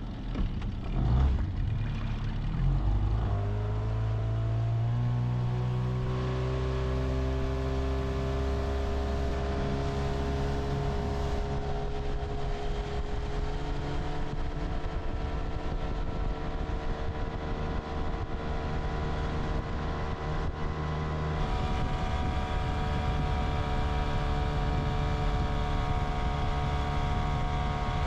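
A 9.9 hp outboard motor pushing a small boat away upstream. It climbs in pitch over the first few seconds as it is throttled up, then runs steadily at speed, with a small step in its tone about three quarters of the way through.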